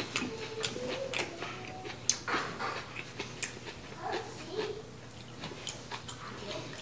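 Eating sounds: chewing and lip smacks, with scattered light clicks of wooden chopsticks and a wooden spoon against a ceramic bowl.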